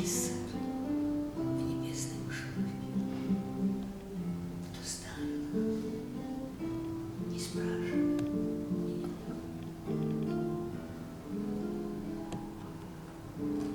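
Acoustic guitar playing an instrumental passage, a steady run of plucked and strummed notes.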